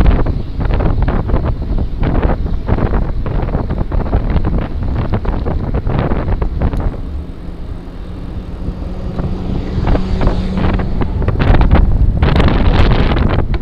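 Wind buffeting the microphone of a gravel bike riding over a rough trail, with many short knocks and rattles. Partway through it quietens for a few seconds and a steady low hum comes through, then the wind rush and rattling return louder.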